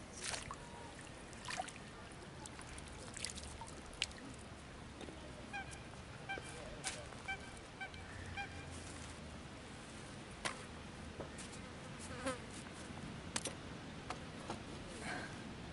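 Faint open-air background with scattered small clicks. From about five to nine seconds in, a bird gives a series of short, evenly spaced calls, about two a second.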